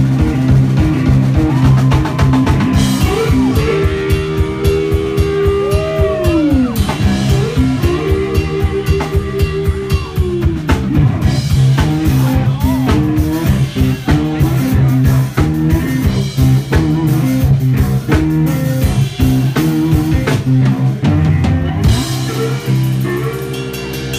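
Live blues-rock band playing an instrumental passage: an electric guitar lead of long held notes that slide up and down in pitch, over a steady drum-kit beat and electric bass.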